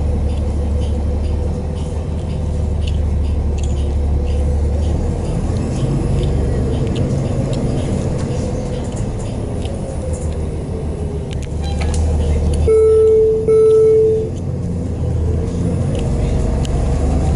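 Cabin sound of a New Flyer XDE40 diesel-electric hybrid bus under way: the Cummins ISL9 diesel and Allison H50EP hybrid drive running with a low hum and a motor whine that rises and falls as the bus speeds up and slows. About 13 seconds in, two loud electronic beeps of the same pitch sound back to back.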